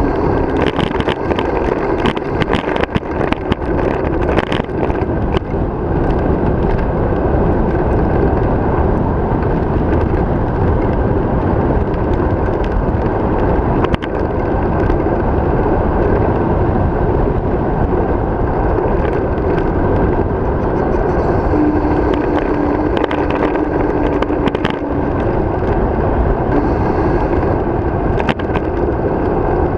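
Wind rushing over the microphone of a bicycle-mounted camera with tyre noise on asphalt during a fast downhill ride. Scattered sharp clicks and knocks come from the bike, mostly in the first few seconds and again after the middle.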